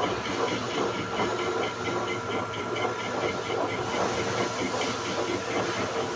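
Manual metal lathe running: a steady machine hum with several held tones and a fast, regular ticking from the gearing over a hiss.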